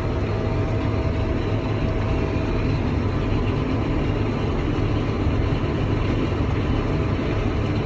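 Vehicle engine running at a steady pace, with a low, even drone and a faint steady whine above it.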